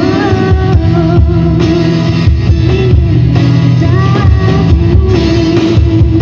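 Live acoustic pop performance: a woman singing held, wavering notes over two strummed acoustic guitars, amplified through the stage sound system.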